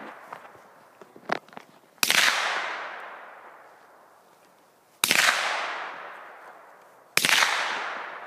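Three rifle shots, about three and then two seconds apart, each followed by a long echo fading off. A brief clatter comes about a second in.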